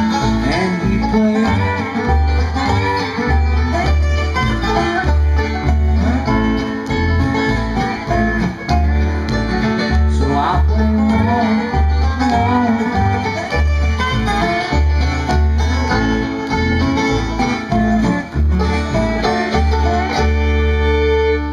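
Bluegrass band playing without vocals: dobro, banjo, fiddle, acoustic guitar and upright bass, the bass marking a steady beat about twice a second. The band closes on a held final chord near the end.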